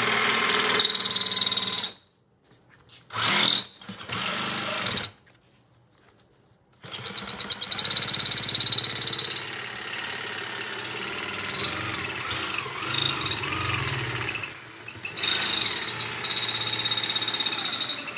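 Milwaukee cordless jigsaw cutting a round hole in a ceiling tile. It runs in stretches, stopping and starting: it goes quiet about two seconds in, gives a few short bursts, pauses again, then runs steadily from about seven seconds in, with one more brief stop near the end.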